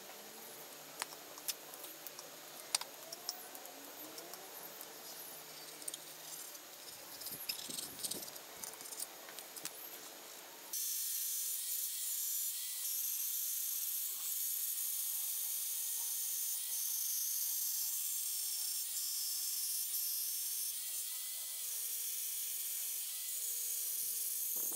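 Faint scratching and small clicks of a pen tracing a template onto a wooden board. Then, about eleven seconds in, a corded Bosch jigsaw is heard cutting the board, running with a steady whine until the end.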